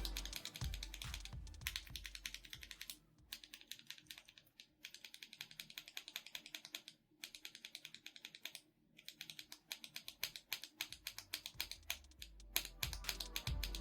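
MMD Princess tactile mechanical keyboard switches (48 g) being pressed repeatedly in a fast run of short clacks, broken by a few brief pauses.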